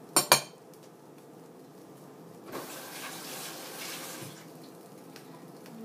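A short, sharp clatter just after the start, then water runs from a kitchen tap for just under two seconds.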